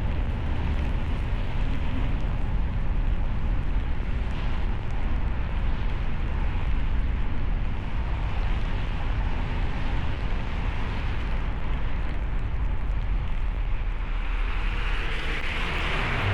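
Car driving on a snowy road: a steady low rumble of engine and tyres under a wash of road and wind noise. A louder hiss swells near the end.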